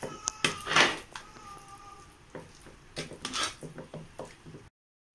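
Metal ladle stirring thick cooked pongal in an aluminium pressure cooker, scraping and clinking against the pot in irregular strokes, with a run of quick taps a little after three seconds; the sound then cuts off suddenly.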